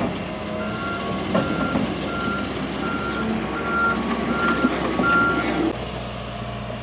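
Heavy equipment's backup alarm beeping seven times at an even pace over a running engine. The beeps stop about five seconds in, and the engine note shifts soon after.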